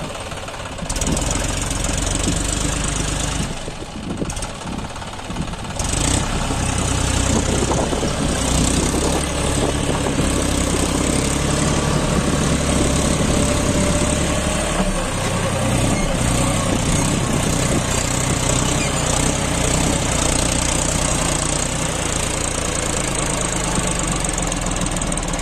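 John Deere 5105 tractor's three-cylinder diesel engine working under heavy load, pulling a fully loaded trolley of sand up a slope. It runs steadily, gets louder about a second in, eases off briefly, then is louder and stays loud from about six seconds in.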